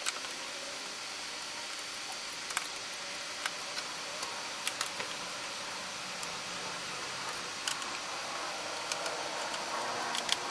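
Steady hiss of room tone and recording noise, with a few small, scattered clicks and taps.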